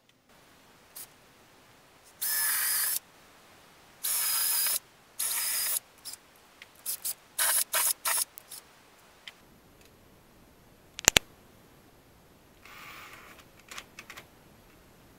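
Parkside cordless drill boring holes into drywall in short bursts: three runs of under a second each, then a quick string of shorter trigger pulses. A sharp double click a little past the middle is the loudest sound, and a quieter run follows near the end.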